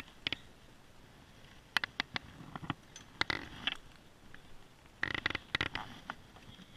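Handling noise: several clusters of sharp clicks and knocks as fishing gear and hands bump about the small boat, over a faint steady hiss of moving river water.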